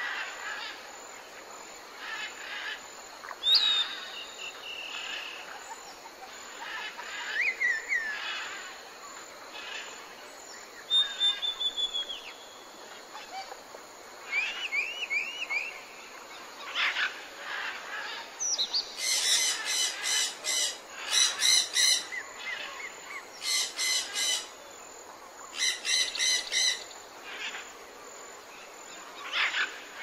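Several wild birds calling and singing: short whistles, chirps and gliding notes, over a steady background hiss. In the second half, a rapid rattling call comes in several loud bursts.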